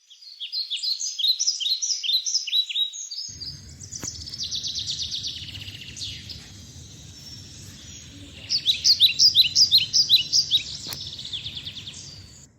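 Birds chirping in quick series of short down-slurred notes, busiest at the start and again after about eight seconds. A low background rumble comes in about three seconds in.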